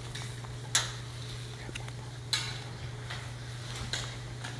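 Metal tongs clinking against a stainless steel sauté pan three times, about a second and a half apart, over a steady low hum.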